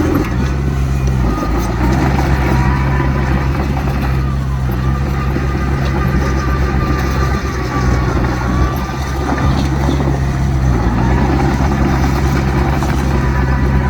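Heavy diesel earthmoving machinery running steadily under load, with a deep engine drone and a faint whine that wavers in pitch through the middle.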